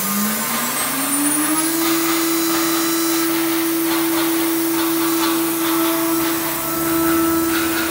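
Spindle of an aluminum profile CNC milling machine running up with a rising whine, which levels off to a steady tone after a couple of seconds. About three seconds in, the cutter starts into the aluminum profile, adding irregular cutting noise over the whine.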